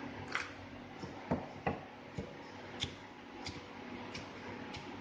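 Chinese cleaver slicing green pepper on a thick round wooden chopping block: sharp knocks of the blade striking the wood, unevenly spaced at about two a second.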